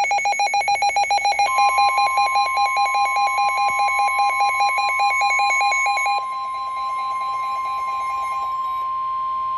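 NOAA Weather Radio alert: a weather-radio receiver's rapid electronic alarm beeping, joined about a second and a half in by the steady single-pitch Warning Alarm Tone near 1 kHz. The beeping stops about six seconds in while the steady tone holds. The tone signals that a warning is about to be read.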